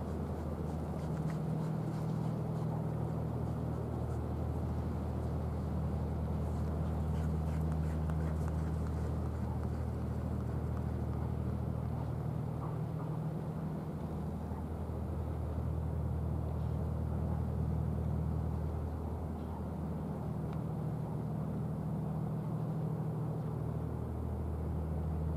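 Steady low engine drone with a deep hum that thins briefly a few times, over a broad rushing background.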